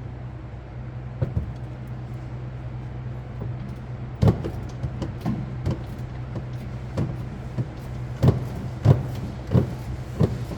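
Irregular sharp clicks and knocks of a wrench being worked on the crankshaft to bring a cylinder up to its compression stroke for a leak-down test, over a steady low hum.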